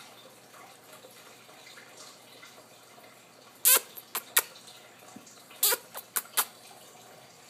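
American Pit Bull Terrier puppy playing with a plush toy on a hardwood floor: quiet at first, then two quick runs of sharp clicks and taps, three about three and a half seconds in and four more about two seconds later.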